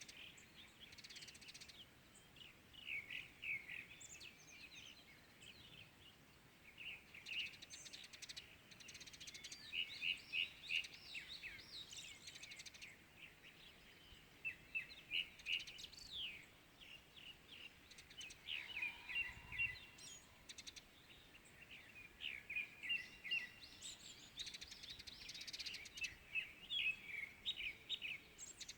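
Several small songbirds chirping and singing in morning song, with quick bursts of short, high chirps coming again and again over a faint steady hiss.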